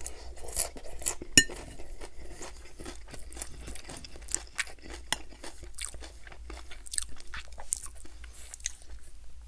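Close-miked crunchy chewing of a mouthful of salad, with wet crackles and small clicks throughout and one sharp click about a second and a half in.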